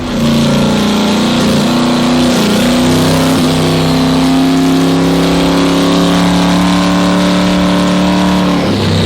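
Boosted Ford Ranger engine held at high revs under load during a dyno pull, its pitch climbing slowly for about eight seconds. Near the end it drops suddenly as the throttle is let off.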